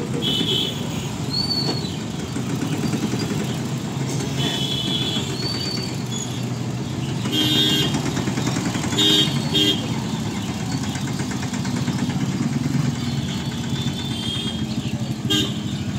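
Road traffic crossing at once: motorcycle and tractor engines running steadily, with several short vehicle-horn toots and people's voices.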